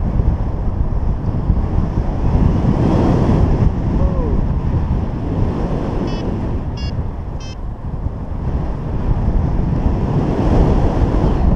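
Wind rushing over an action camera's microphone in paraglider flight: a loud, rumbling rush that swells and eases. Three short high beeps come midway.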